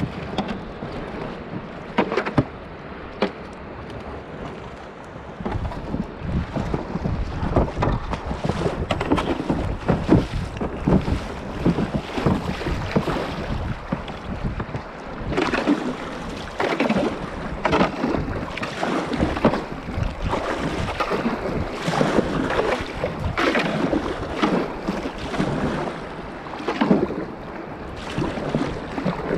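Kayak paddle strokes splashing in a shallow river current, sparse at first and then about one a second, with water washing along the hull and wind buffeting the microphone.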